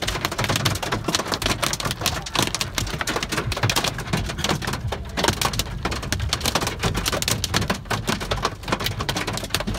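Small hail and rain pelting a car's roof and windshield, heard from inside the cabin: a dense, unbroken clatter of countless sharp hits.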